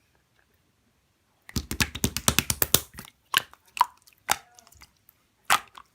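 Slime being squished by hand: a quick run of sticky clicks and crackles starts about a second and a half in, followed by a few single wet pops.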